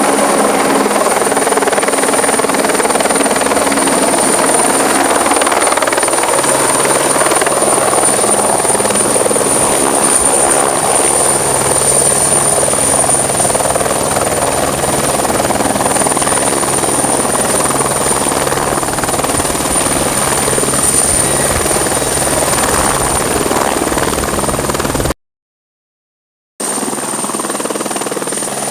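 AS355 twin-turbine helicopter running steadily, a dense rotor and engine noise with a thin high turbine whine over it. About 25 seconds in it cuts to silence for a moment, then resumes slightly quieter.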